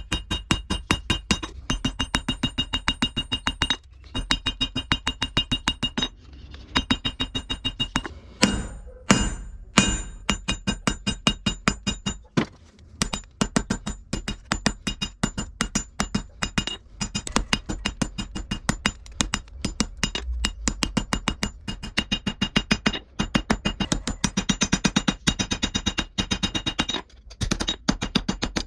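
Hammer forging steel on an anvil: quick, regular blows, about four or five a second, each with a metallic ring, stopping briefly a few times.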